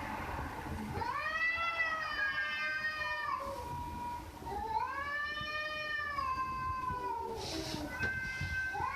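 A domestic cat meowing in long, drawn-out calls, each rising and then falling in pitch. There are two long meows, and a third begins near the end.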